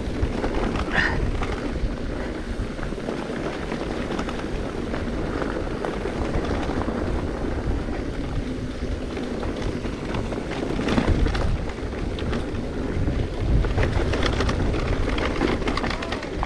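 Wind buffeting the microphone of a camera riding along on a mountain bike, a dense low rumble, with a few knocks and rattles about eleven and fourteen seconds in.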